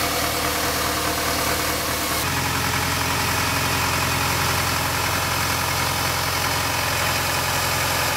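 A tractor's diesel engine running steadily. The engine hum changes abruptly about two seconds in.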